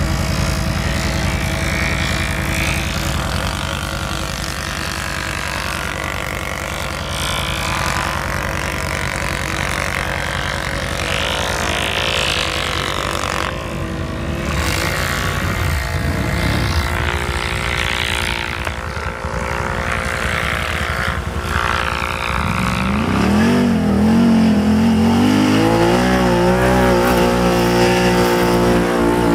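ATV engines running: a steady low engine hum throughout, then a quad's engine revving up about 22 seconds in and staying loud to the end, its pitch wavering up and down as it runs close by.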